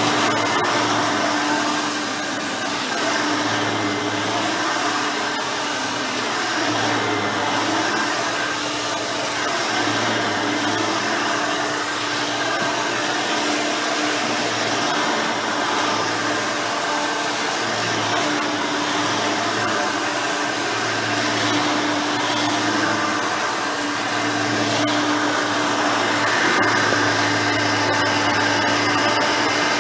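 Hoover Elite 5.0 upright vacuum running steadily on its rebuilt original 5-amp motor, with a constant whirring tone and a low hum that swells and fades every second or two as it works the carpet.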